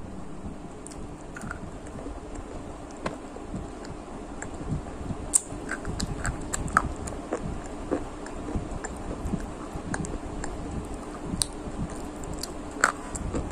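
Close-miked chewing and crunching of crispy fried strips, with irregular crackles and clicks. There is a louder crunching bite near the end.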